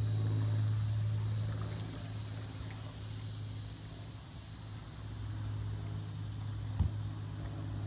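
A chorus of insects shrilling with a fast, even pulse, over a low steady hum. One soft knock comes near the end.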